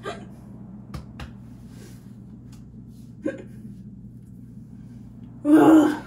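A woman hiccuping: short sharp hiccups at the start, about a second in and around three seconds, then a louder, longer hiccup near the end.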